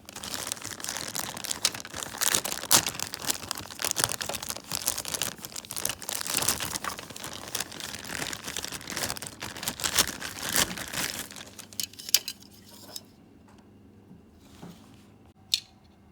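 Dense, irregular crinkling and rustling, like material being crumpled or handled, for about thirteen seconds, then it stops, leaving a few scattered clicks.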